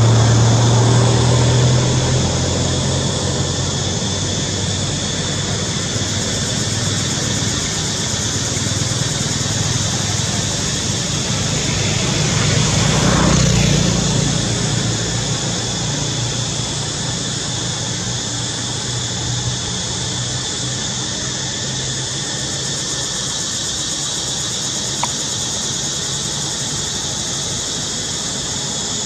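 Steady outdoor background noise with a steady high-pitched drone and a low engine hum. The hum is loudest at the start and fades over a few seconds, and a second swell rises and falls about 13 seconds in, like a motor vehicle passing.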